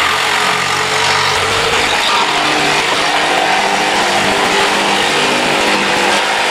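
Corded jigsaw running steadily at speed, its blade cutting through thin plywood paneling.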